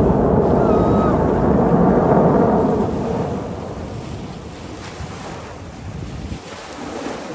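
Blue Angels jet roaring overhead as it passes, fading away about three seconds in, with wind on the microphone.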